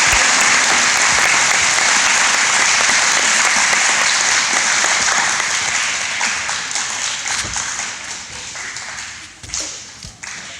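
A large audience applauding. The clapping is loud at first, thins out after about six seconds and dies away, leaving a few scattered claps near the end.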